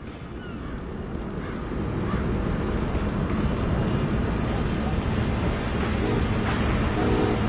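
A deep, steady rumbling noise that fades in over the first couple of seconds and then holds, with no distinct knocks or beats in it.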